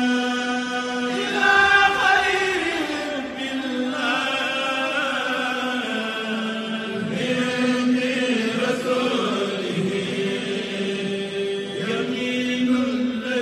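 Unaccompanied male voice chanting religious Arabic text in long, slowly gliding held notes, the melodic recitation of a mosque prayer.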